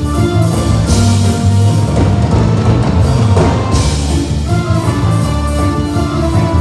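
Loud instrumental music over a PA sound system, with heavy bass and drums and cymbal crashes about one second and four seconds in.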